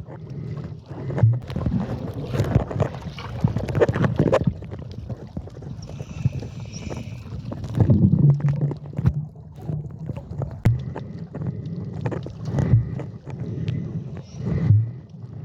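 Water sloshing and splashing around the camera in irregular swells, with low thumps and wind buffeting the microphone.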